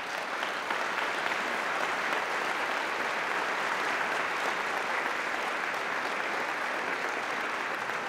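Large lecture-hall audience applauding after a talk, steady sustained clapping.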